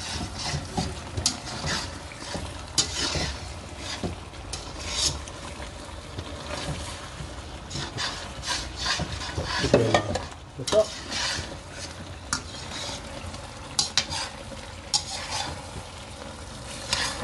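Slotted spatula stirring and scraping in a wok of braising chicken and vegetables, in repeated irregular scrapes and clatters over the steady sizzle of the simmering sauce as it is thickened with cornstarch slurry.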